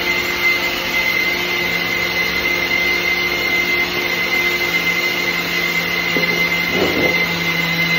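Steady machine hum, like a motor or fan running, with a constant high whine over it.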